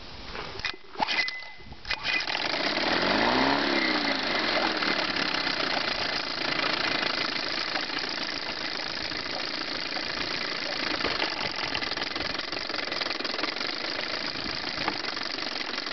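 Chrysler 9.9 hp two-stroke outboard engine running. It is faint and uneven for about the first two seconds, then picks up to a steady run with a brief rise and fall in speed, and settles into a smooth idle once the low-speed fuel mixture is backed off from too lean.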